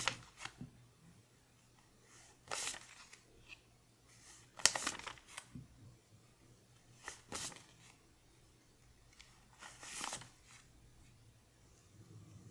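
A stack of paper one-dollar bills leafed through by hand: each bill slid off the pile with a brief crisp paper rustle, five or six times, every two to three seconds. The loudest rustle comes a little before halfway through.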